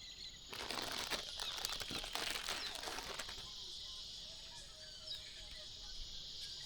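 A steady high-pitched insect chorus, with a loud rustling, crackling noise from about half a second to three seconds in, and a few faint short chirps later on.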